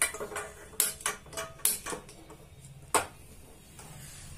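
Kitchen handling sounds: several sharp clicks and light clinks of steel dishes and utensils, a few with a short metallic ring.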